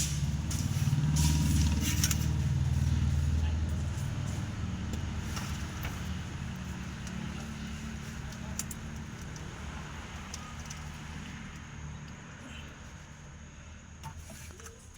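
A motor vehicle's engine running nearby, loudest at first and gradually fading away, with a few light clicks from handling wiring.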